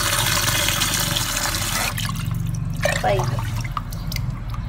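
Water poured from a plastic cup onto rinsed rice in a cooking pot, a steady splashing pour that stops about two seconds in, followed by a few small drips and clicks. It is one cup in the measuring of the cooking water for the rice.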